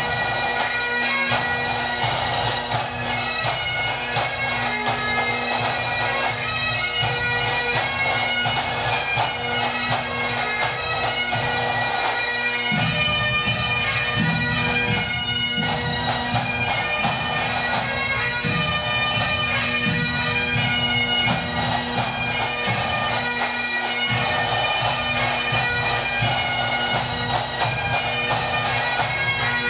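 A pipe band of Highland bagpipes and drums playing a 6/8 march: a steady drone under the chanter melody, with the drumming growing heavier about twelve seconds in.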